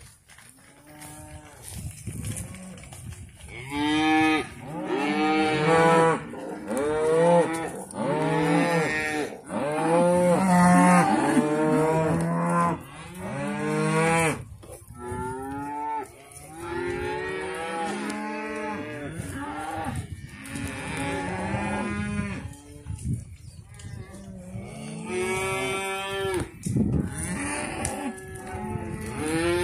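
A herd of cattle mooing, many long calls overlapping one another, loudest and densest in the first half with a short lull a little after the middle.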